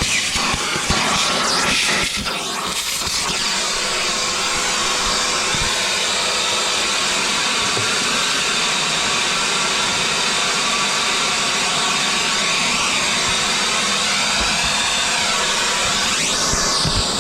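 A steady, loud hiss of air blowing dust out of a cordless backpack vacuum, the airflow faltering briefly about two seconds in.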